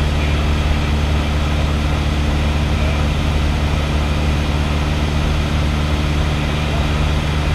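Light aircraft's piston engine and propeller droning steadily in cruise flight, heard from inside the cockpit.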